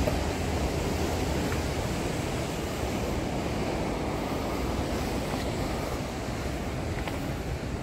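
Steady rushing noise of sea surf breaking on a rocky shore, with a low wind rumble on the microphone.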